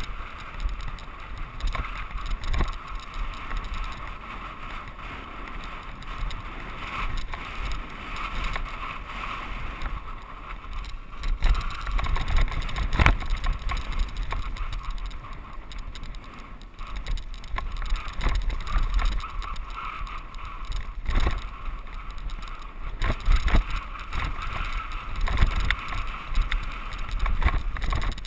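Mountain bike riding fast down a dirt singletrack: steady wind rush and tyre rumble, broken by frequent short rattles and knocks as the bike bounces over ruts and rocks.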